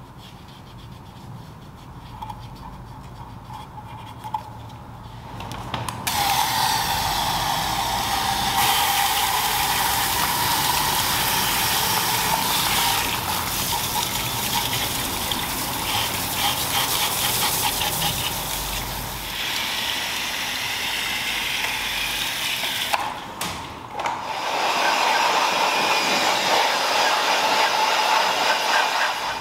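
Water jet from a pressure-washer gun rinsing a car's alloy wheel and tyre: a steady hiss of spray striking the rim that starts about six seconds in, breaks off briefly near the end, then resumes. Before the spray, soft scrubbing of a small detailing brush around the lug nuts.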